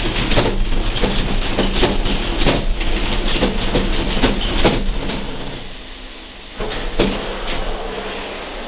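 Noise inside a moving vehicle in the rain: a loud rush with many knocks and rattles, easing off about six seconds in, then picking up again with a sharp knock.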